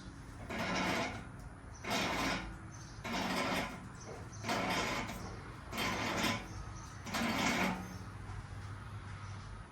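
Professional strut spring compressor being worked to compress a strut's coil spring: a mechanical stroke repeats about once a second, six times, then stops, leaving a low steady hum.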